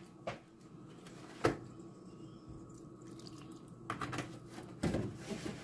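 Milk splashing into a bowl of mashed potatoes as more is poured in, quietly. A few faint clicks and knocks: a sharp one about a second and a half in and a small cluster near the end.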